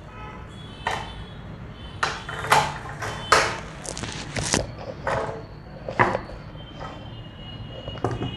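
Saree fabric rustling and swishing in about ten short, irregular strokes as it is smoothed flat and handled on a cutting table.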